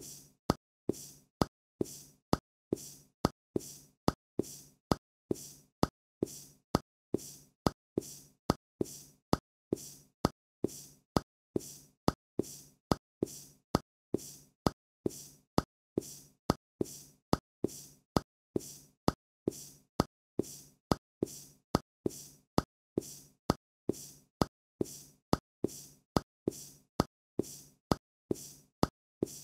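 Cartoon sound effect of a hopping character: a plop about once a second, in time with the looping animation. Each plop is a sharp pop followed by a softer, fading tail.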